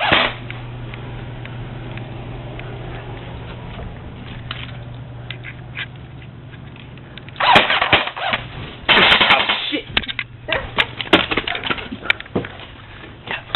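Airsoft guns being fired indoors. After a stretch of low steady hum, there is a short burst about halfway through and a denser burst near two-thirds, then a quick run of sharp snaps and BB impacts.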